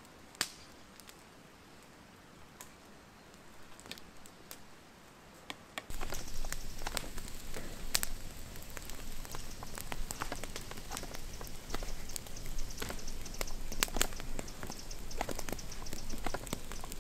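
Wood campfire crackling, with many sharp snaps and pops. It is faint and sparse at first, then becomes louder and closer, with dense crackling, about six seconds in.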